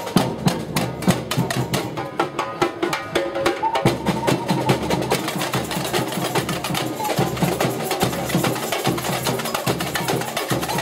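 A street percussion group of marching snare drums and hand percussion playing a fast, dense beat.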